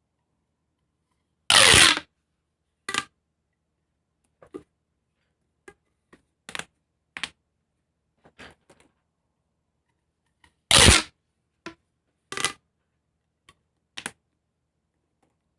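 Plastic pop tube fidget toys being stretched and squeezed: two loud bursts about half a second long, roughly nine seconds apart, with a scatter of short pops and clicks between them.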